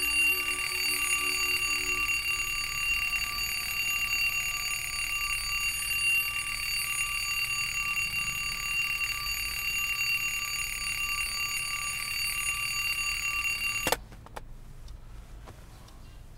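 Alarm clock bell ringing continuously with a bright metallic ring, cut off abruptly about fourteen seconds in. Faint rustling and small clicks follow.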